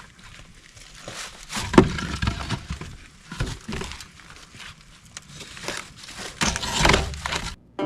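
Concrete foundation blocks knocking and scraping as they are handled and stacked, with heavier thuds about two seconds in and again near the end; the sound cuts off suddenly.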